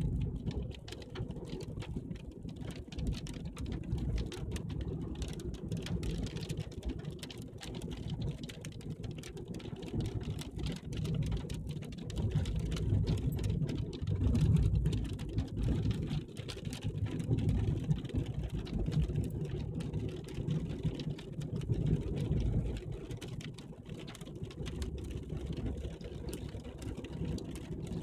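Car running, heard from inside the cabin: a steady low rumble that swells and fades.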